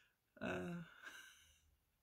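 A man's short breathy vocal sound, about half a second in, trailing off over the next second.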